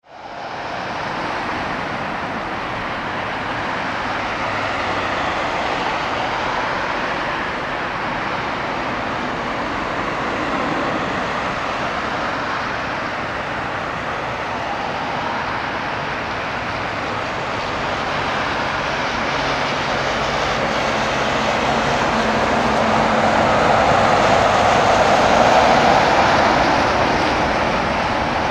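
Airliner jet engines on the runway: a steady rushing noise that grows louder through the second half as a FedEx twin-engine freighter rolls on the runway.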